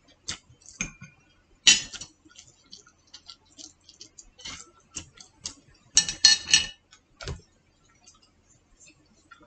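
Chopsticks and a fork clicking and clinking against plates while eating. The clicks are irregular, with a louder clatter about two seconds in and a quick cluster of clinks around six seconds in.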